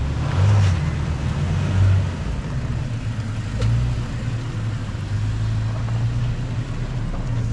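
Toyota Tacoma TRD Sport pickup's engine running at low revs as the truck crawls slowly down a muddy trail, a steady low rumble that swells slightly twice in the first two seconds.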